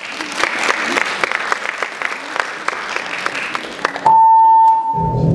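Audience applauding, dense clapping that stops about four seconds in as the routine's music starts, first with a single long high note and then low sustained tones.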